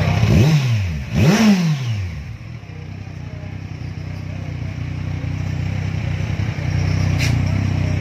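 Kawasaki Z1000's inline-four engine idling through an aftermarket mid pipe and Villain slip-on muffler, blipped twice in quick succession in the first two seconds, each rev rising and falling back, then settling to a steady idle.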